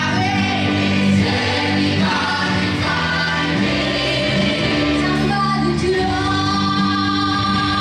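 Gospel choir singing in parts, long held notes moving from chord to chord, with a woman's voice on a microphone over the choir.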